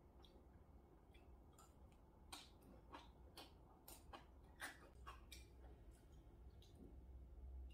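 Near silence with faint, irregular clicks of eating: a metal spoon against the bowl and small mouth sounds, about a dozen in all, over a low room hum.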